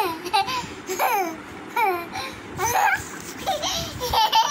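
A young child laughing and babbling in a series of short, high-pitched bursts, each falling in pitch, about one a second.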